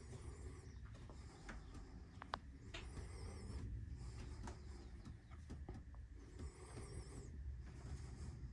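Faint birdsong: short, high warbling phrases repeating about every three seconds, over a steady low rumble with a few light clicks.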